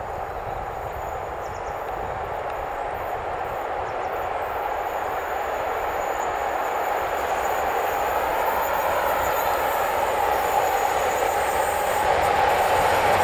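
Newag Dragon E6ACT electric freight locomotive hauling a train of loaded tank wagons, approaching. Its running noise and wheels on the rails grow steadily louder as it nears.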